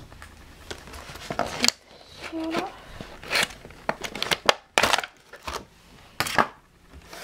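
Plastic and cardboard eraser packaging crackling and crinkling as it is bent and pried open by hand, in irregular sharp clicks and short rustles.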